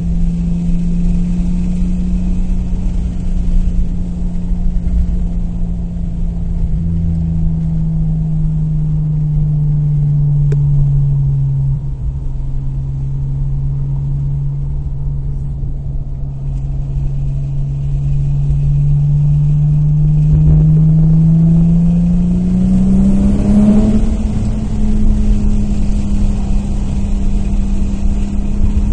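Nissan Maxima's VQ35 V6 with an aftermarket exhaust running, a steady drone whose pitch sags slowly through the middle and then climbs again near the end as the revs come up.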